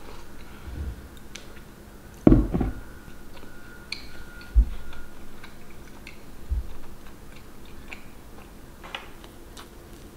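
Close-up eating sounds of French toast: chewing and biting, with small clicks of a metal fork on a ceramic plate. A dull knock about two seconds in is the loudest sound, and a few fainter knocks follow.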